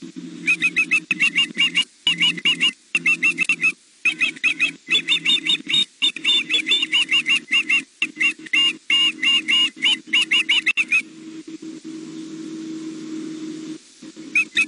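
Juvenile osprey food calling: long runs of rapid, high, whistled chirps repeated over and over. The calls stop about 11 seconds in and start again just before the end.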